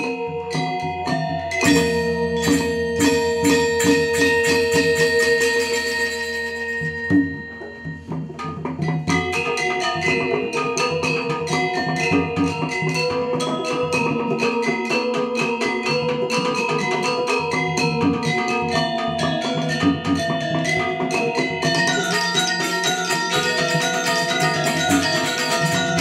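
Balinese gamelan ensemble playing Legong dance music: bronze metallophones in rapid struck patterns with drums. The music thins out briefly about seven seconds in, then picks up again.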